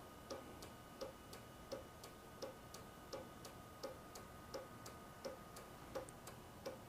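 Honda Gold Wing's hazard flashers ticking faintly and evenly: a louder tick and a softer one alternate about a third of a second apart, the pair repeating about every 0.7 seconds.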